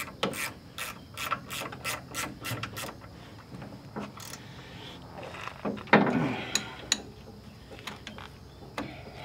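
Ratchet wrench clicking in quick strokes as a bolt on a tractor loader frame is checked and tightened, the clicks turning slower and scattered after about three seconds, with a louder clunk about six seconds in.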